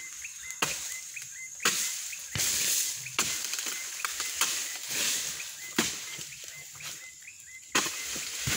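Oil palm harvesting pole's blade jabbing and chopping into the frond bases of the palm, about seven sharp strikes roughly a second apart, each followed by the rustle of the fronds.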